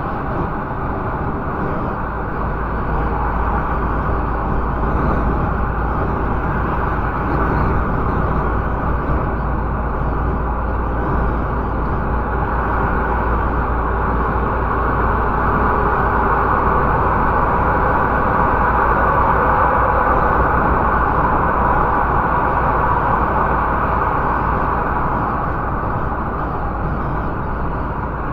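Steady road and engine noise inside a MAN TGX 470 truck cab while driving: a continuous low rumble under an even hiss of tyres and wind, a little louder through the middle.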